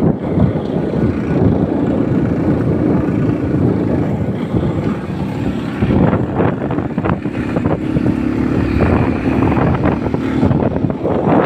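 Motor scooter riding along, its engine running steadily under loud wind buffeting the microphone.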